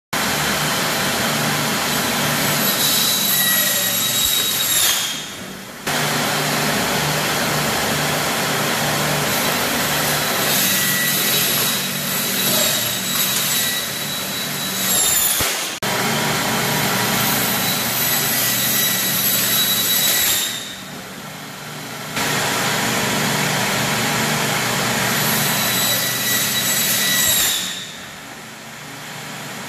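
Large electric circular saw running with a high-pitched whine over a low motor hum while material is fed into the blade. The whine sags in pitch several times as the blade bites, and the sound falls away briefly three times.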